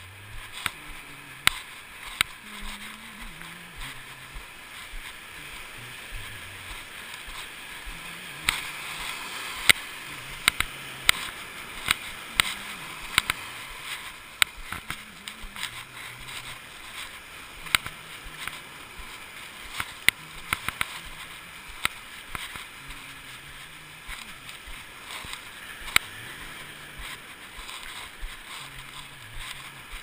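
Ocean surf washing up the beach, a steady hiss heard through a waterproof GoPro housing, with many irregular sharp knocks from the housing bumping as it swings on its cord around the walker's neck.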